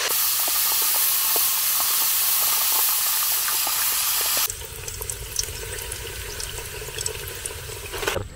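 Steady loud hiss from an aluminium pressure cooker deep-frying pork jowl in hot oil. It cuts off suddenly about four and a half seconds in, leaving a quieter low rumble with faint scattered crackles.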